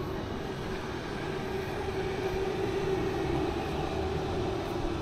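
Steady city street traffic noise: a continuous low rumble with a constant engine hum.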